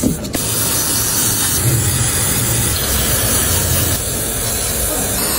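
Steady, loud spraying hiss that starts a moment in and holds without a break.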